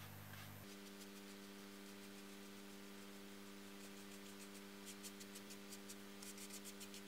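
Soft brushing: paintbrush bristles sweeping dust off an old loudspeaker's paper cone and metal frame in short, faint strokes that come quicker near the end, over a steady low hum.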